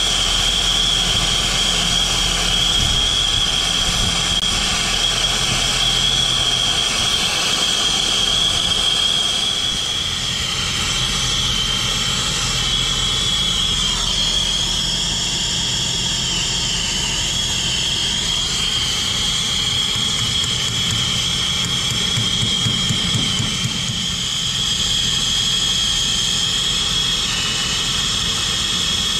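Brazing torch flame burning with a steady hiss and a constant high whistle, heating the refrigerant line joints on a replacement compressor so they can be brazed.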